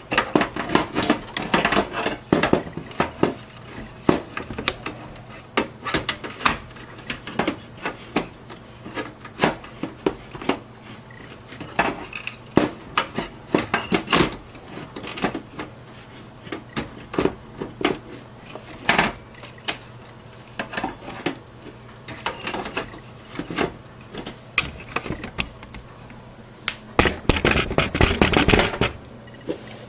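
Irregular clicks, knocks and clatter of a desktop power supply being handled and worked back into the metal chassis of an HP Elite 8300 small form factor computer, with a louder burst of handling noise near the end.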